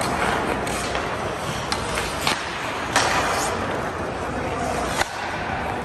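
Ice hockey play on a rink: skate blades scraping the ice under a steady wash of rink noise, with several sharp clacks of sticks and puck, the loudest about three seconds in and again about five seconds in.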